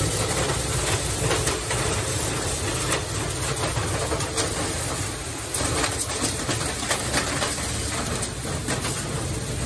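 Steady rush of compressed air from a Scorpion air-whip agitation tool scrubbing inside a duct, with irregular rattles and knocks as it whips against the duct walls, over the constant low rumble of a truck-mounted PTO duct-cleaning vacuum pulling out the loosened dust.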